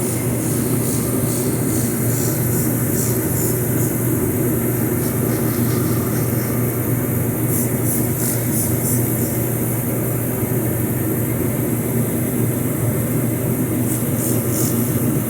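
Steady loud hum of a running shop heater. Over it come several clusters of quick, hissy squirts from a trigger spray bottle of Windex being sprayed on a tire to find a slow leak.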